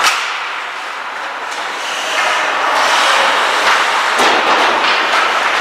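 Ice hockey game noise in an arena: a sharp crack of stick or puck at the start, then a steady wash of skates on ice and rink noise that grows louder about two seconds in.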